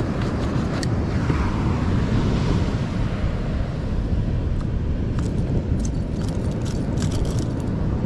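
Steady low rumble of surf and wind buffeting the microphone on an open beach, with a few faint clicks of gear being handled.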